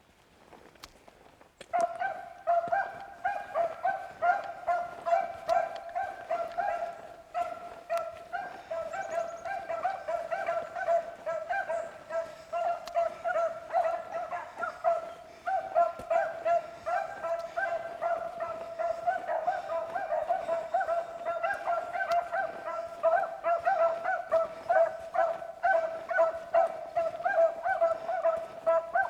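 Beagles baying on a running rabbit's track, their short, overlapping calls forming a continuous chorus that starts about two seconds in.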